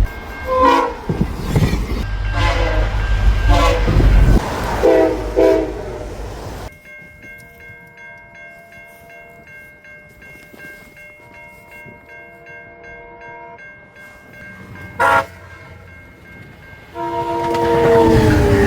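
Train horns on passing trains: a train goes by with heavy rumble and several short horn blasts. After a quieter stretch with faint steady tones, another horn chord sounds loudly near the end and drops in pitch as the train passes.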